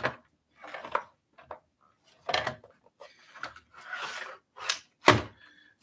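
E-bike battery pack being worked into the battery compartment of a Biktrix Kutty FS folding frame: a series of knocks and clicks with a scraping rub in the middle, and a sharper knock near the end.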